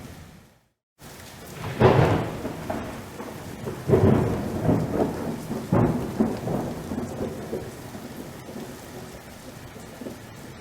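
Thunderstorm: steady rain with thunder. The sound drops out for about half a second near the start. A loud thunderclap comes about two seconds in, with two more cracks around four and six seconds, each rolling into a rumble that dies away.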